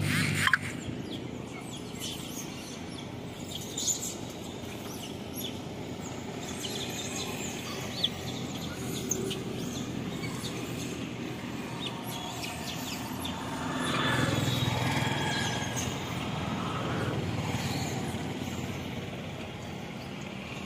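Outdoor ambience: birds chirping off and on over a steady background noise, with a few faint clicks and a swell in the background noise about two-thirds of the way through.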